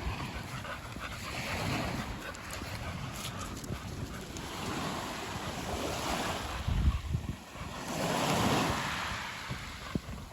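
Surf washing onto a beach, the rush of the waves swelling and easing every few seconds, with wind buffeting the microphone in low thumps.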